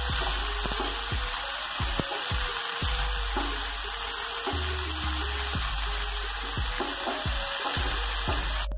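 Sliced onions and green peas sizzling in hot oil in a nonstick frying pan while a spatula stirs them, with occasional clicks of the spatula against the pan.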